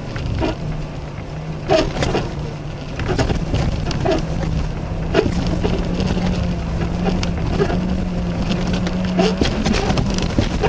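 A car's engine heard from inside the cabin, a steady drone that climbs slowly in pitch as the car gathers speed, then drops suddenly near the end. Thumps and rattles come from the suspension and cabin as the car rolls over a rutted, icy road.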